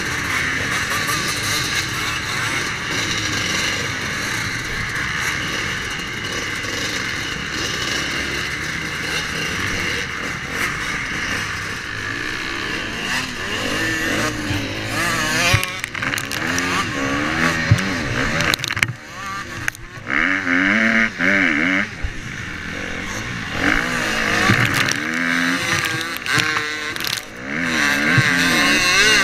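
Several motocross bike engines running together. From about halfway in, one dirt bike engine revs up and falls back again and again as it accelerates and shifts through the gears, heard from on the bike.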